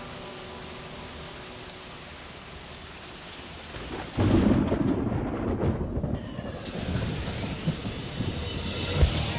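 Steady rain hiss, then about four seconds in a sudden loud clap of thunder that rolls on as a heavy low rumble over the rain.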